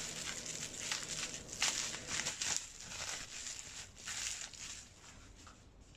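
Rustling and scattered light clicks of hands handling the replacement rechargeable battery pack and its wires, dying away about five seconds in.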